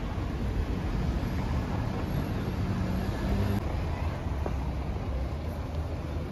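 City street ambience: a steady low traffic rumble, with a vehicle engine humming close by that stops a little past halfway through.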